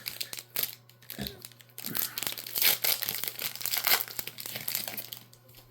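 A foil booster-pack wrapper being torn open and crinkled, with dense crackling strongest in the middle seconds.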